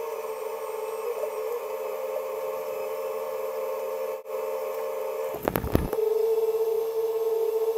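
Bucket truck running with a steady mechanical whine as its aerial boom swings. About five and a half seconds in there is a brief burst of clattering, after which the whine is louder.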